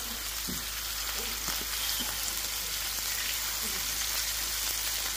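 Bacon-wrapped kebabs sizzling steadily in fat in a skillet on a gas stove, with a few light knocks as they are turned over with a utensil.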